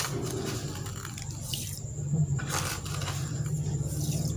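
A stream of water pouring into a metal pot that already holds water and soaking lentils, splashing on the surface.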